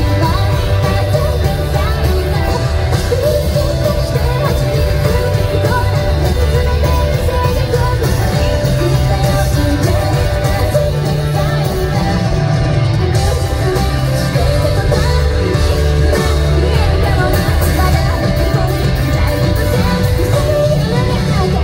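Live rock band playing loud, with a female lead singer over guitar, bass, drums and keyboards, recorded from the audience.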